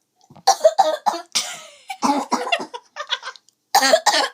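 A girl coughing in a series of short, harsh coughs, her mouth and throat burned by a spicy ginger candy.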